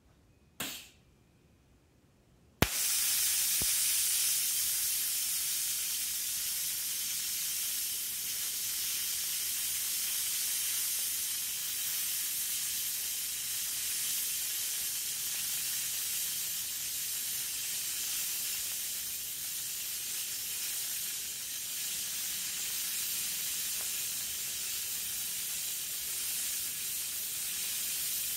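DC TIG welding arc from a YES Welder TIG-250P on quarter-inch steel. A sharp crack as the arc strikes about two and a half seconds in, then a steady hiss and sizzle as the weld is run, at an amperage the welder judged a little too cool.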